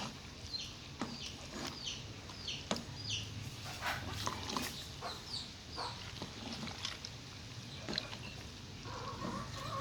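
Chickens chirping and clucking: many short high chirps, with a few sharp clicks in between.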